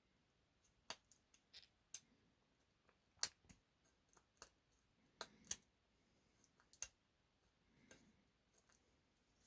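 Small sharp clicks and snaps at irregular intervals as printed support bits are prised and broken off 3D-printed model tanks with a small screwdriver or file.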